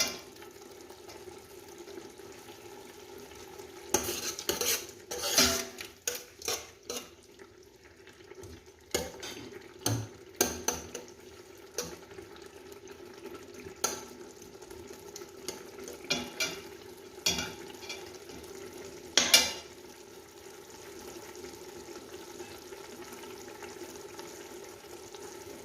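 Onion, eggplant and bell peppers frying in oil in a pan, stirred with a spoon that scrapes and knocks against the pan in irregular strokes, most of them in the first three quarters, the loudest about 19 seconds in. A steady low hum runs underneath.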